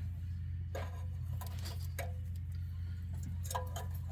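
A few light metallic clinks of pliers working the tailpipe's rusted, flared end, each ringing briefly, over a steady low hum.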